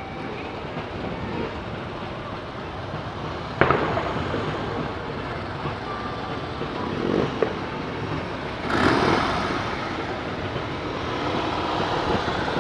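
Several police motorcycles rolling slowly past close by, their engines running at low revs. There is a sudden sharp bang about three and a half seconds in, and the sound swells again around seven and nine seconds as the bikes come closest.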